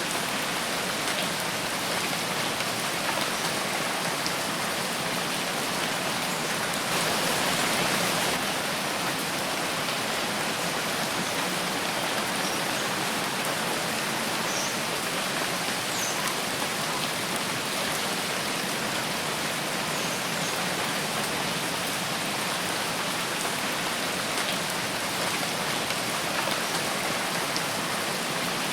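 Steady rainfall pattering on surfaces, with a brief swell of heavier rain about seven seconds in and scattered faint drips.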